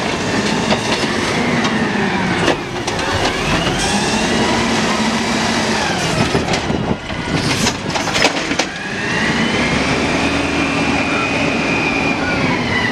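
Automated side-loader garbage truck working its lifting arm: the engine and hydraulics rev up and back down three times, each a slow rising then falling whine, as the arm lifts, dumps and lowers a trash cart. A few sharp knocks come about seven to eight seconds in.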